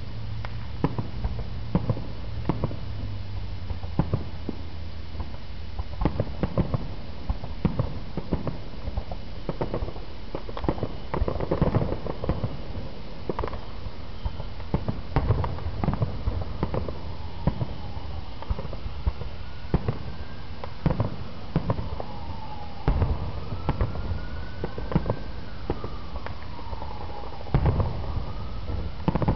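Aerial fireworks shells bursting: an irregular string of sharp bangs, at times several a second, thickest about a third of the way in.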